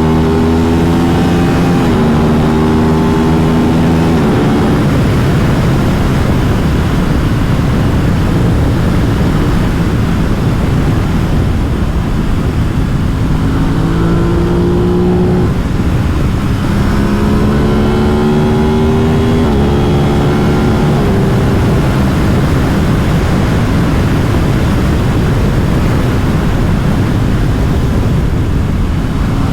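Aprilia RS 660 parallel-twin engine accelerating hard through the gears: the pitch climbs and drops back at each upshift, once at the start and again from about halfway. In between and near the end, an even rush of wind and road noise covers the engine.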